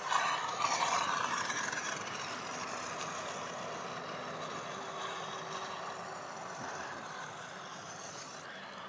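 FMS 1400 mm P-40B electric RC warbird with an onboard engine-sound system, running as it comes down and rolls out on dry grass. A rushing noise, loudest for the first two seconds, then steady.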